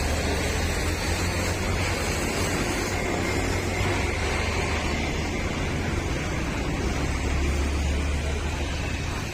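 Motorcycle engine running steadily at idle, a low even hum.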